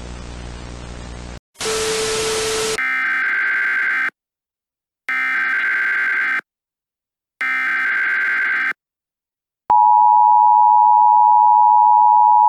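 Emergency Alert System broadcast opening: static with a hum and a short loud burst of hiss, then three short bursts of SAME digital header tones about a second apart. About ten seconds in, the steady two-tone EAS attention signal (853 and 960 Hz) starts.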